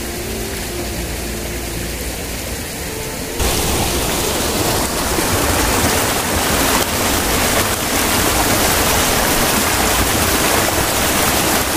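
Stream water rushing and splashing over rocks down a small rocky cascade, a loud steady rush that starts suddenly about three seconds in, after a quieter steady outdoor hiss.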